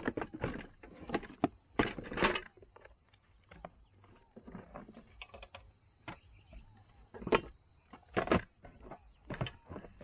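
Irregular knocks, taps and rustling of objects being handled, with the loudest knocks about two seconds in and again around seven and eight seconds in, over a faint steady high hiss.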